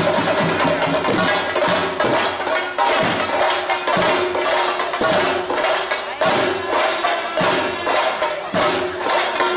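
Theyyam percussion: chenda drums beating with jingling ilathalam hand cymbals in a dense, driving rhythm.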